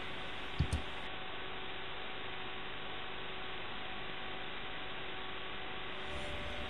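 Steady electrical hum with hiss, with a couple of faint clicks under a second in.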